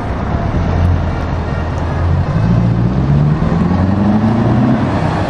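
Renault T tractor unit's diesel engine pulling away: a low steady engine note for the first couple of seconds, then rising in pitch as the truck accelerates.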